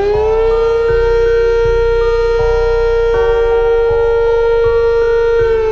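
Sentry 10V outdoor warning siren finishing its wind-up in the first half second, then holding one steady wail and starting to wind down near the end. A music bed with a steady beat plays underneath.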